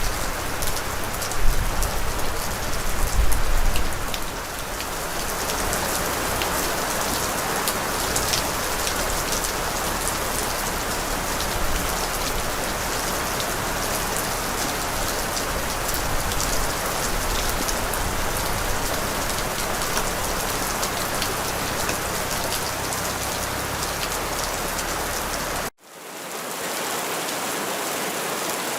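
Steady rain falling, a dense hiss with fine scattered drop taps, with a low rumble under it for the first four seconds or so. About 26 seconds in, it cuts out abruptly for a split second, then comes back thinner, without the low end.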